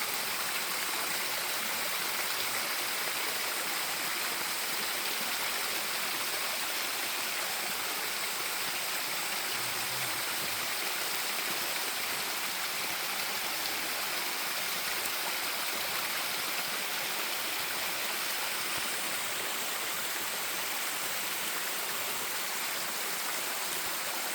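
A stream of running water, flowing steadily as an even, unbroken wash of sound.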